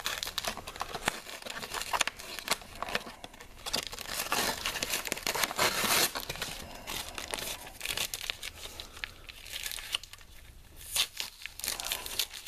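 Cardboard packaging insert and its tape being pulled and torn by hand: irregular rustling, crinkling and short rips, with a longer, louder tear about six seconds in.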